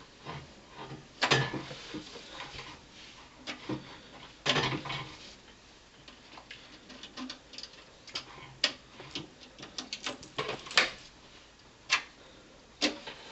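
Cables and plugs being pulled out of the back of a desktop PC: scattered, irregular clicks, knocks and rattles of connectors and cords.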